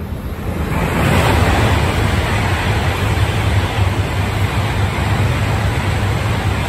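Tohoku Shinkansen E5-series Hayabusa passing through the station at full speed without stopping: a rush of air and running noise that swells about a second in and holds steady as the cars stream past.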